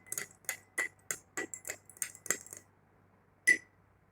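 A spoon stirring a drink in a cup, clinking against the side about three to four times a second with a short ringing note. The stirring stops a little past halfway, and there is one more clink near the end.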